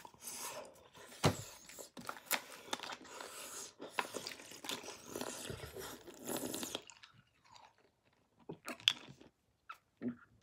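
A person chewing and crunching hard, chalky candies in the mouth. The crunching is dense for about the first seven seconds, then thins to a few scattered clicks near the end.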